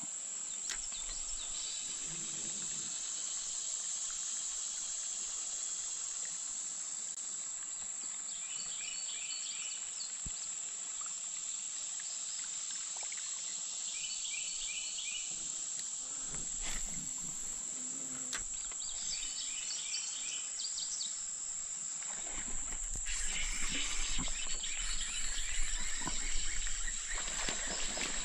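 Steady high-pitched insect chorus, with a bird singing short bursts of repeated chirps three times. In the last few seconds, a kayak paddle splashes and knocks in the water, getting louder.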